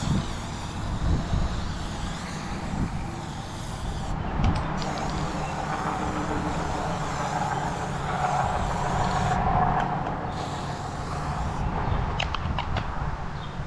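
A heavy machine's engine running steadily, with a higher whine that swells about eight seconds in and a few sharp clicks near the end.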